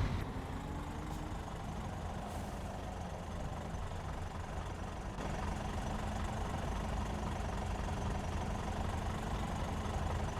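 Scania 500S truck's 13-litre inline-six diesel idling through a straight-through exhaust, a steady low rumble that steps up a little in level about five seconds in.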